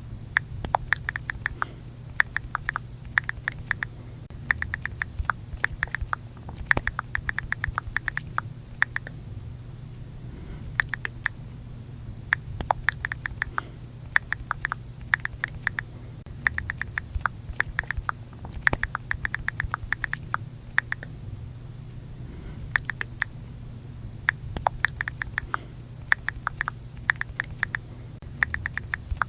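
iPhone on-screen keyboard key-click sounds from someone typing, in quick runs of several clicks a second broken by short pauses. A low steady hum lies underneath.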